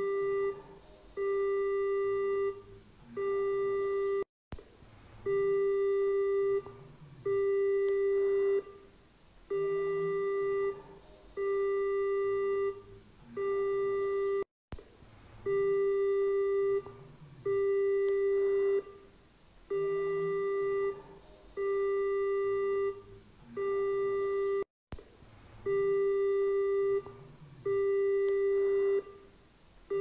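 Taiwan EAS emergency alert tone: a single-pitched, buzzy beep about a second long, repeating roughly every two seconds. The sequence loops about every ten seconds, with a split-second dropout three times.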